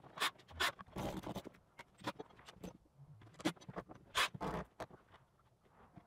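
Scattered light knocks, clicks and scrapes of boards being handled, with a few longer scraping or rustling sounds about a second in and again near four seconds.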